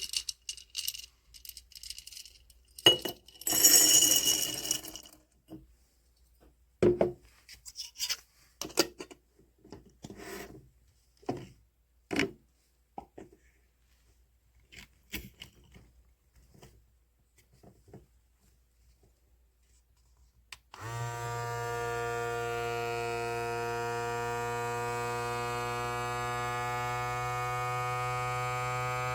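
Scattered clicks and knocks of plastic parts being handled, with a longer rustle a few seconds in. About two-thirds of the way through, the ikiu electric vacuum sealer's built-in pump starts and runs with a steady buzzing hum, its pitch creeping slightly upward.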